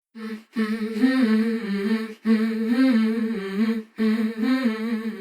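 A person humming a short melody in three phrases, each about a second and a half long, with brief pauses between them.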